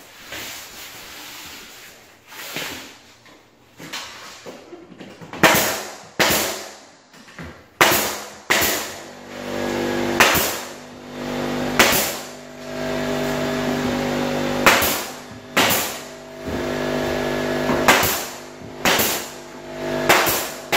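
Sharp knocks at irregular intervals, a dozen or so, from nails being driven into wood base trim, over background music with held tones that comes in after several seconds.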